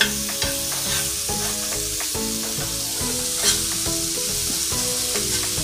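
Marinated chicken pieces sizzling steadily on an iron dosa tawa over a high flame, as the juices they gave off cook away. There are a few short scrapes and taps of a spatula and tongs against the griddle as the pieces are turned, over light background music.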